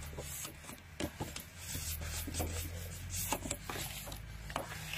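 Sheets of card and paper being handled and slid across a paper trimmer's plastic base, with rubbing, rustling and a few light taps.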